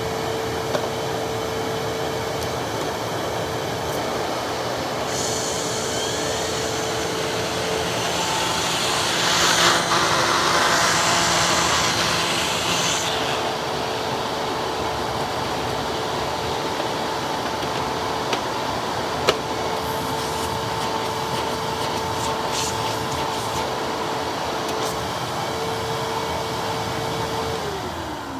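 Hoover Twin Chamber self-propelled WindTunnel upright vacuum running with a steady motor whine and rushing air, which grows louder for a few seconds around the middle. Near the end the motor is switched off and the whine falls as it spins down.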